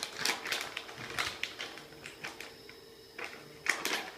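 Irregular light clicks and taps on a hard surface, about eight to ten scattered unevenly, with a quick cluster near the end.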